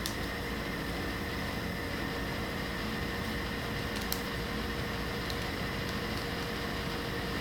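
Steady mechanical hum of a running room appliance such as a fan, with a faint constant whine over it. Faint clicks from handling paper petals and scissors come at the start and about four seconds in.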